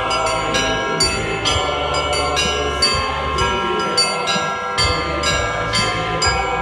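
Russian church bells rung by a bell ringer in a continuous peal: quick strikes on the smaller, higher bells, several a second, over the long overlapping ring of larger, lower bells struck less often.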